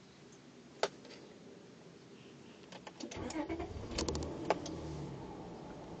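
A car engine starting about three seconds in, with clicks and rattles as it catches, then running with a low steady rumble. A single sharp click comes about a second in.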